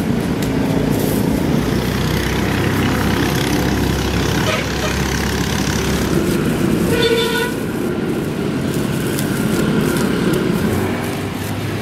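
Steady background noise with a low hum, and one short horn-like toot about seven seconds in.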